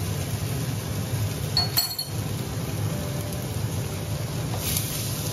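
A wooden spatula stirring onions, green chillies and garlic-ginger paste frying in a kadai, with a single clink about two seconds in.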